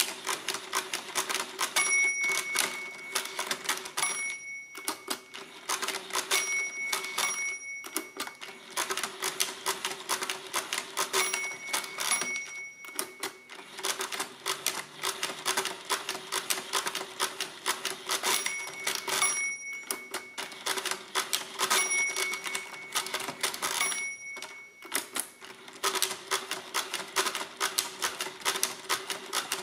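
Precisa 117 pinwheel mechanical calculator being hand-cranked turn after turn, its gears and pinwheels clattering, with a few short pauses. Its bell rings every few seconds, the overdraft signal that a subtraction has gone too far for the current digit during division.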